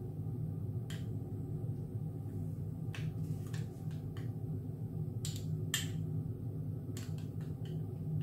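A metal teaspoon clinking lightly and irregularly, about eight times, against a small glass bowl while yeast is stirred into warm milk, over a steady low background hum.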